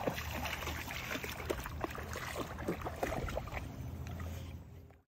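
A dog wading through a shallow, stony creek, its legs making many small irregular splashes over a steady trickle of water. The sound fades out near the end.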